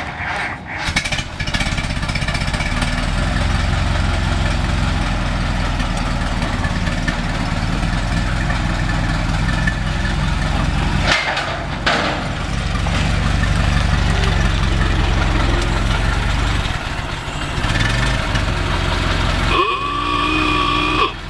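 1924 Ford Model T's four-cylinder engine running steadily as the car is driven off a trailer, with two sharp knocks about a second apart midway through. Near the end, steady high tones come in over it.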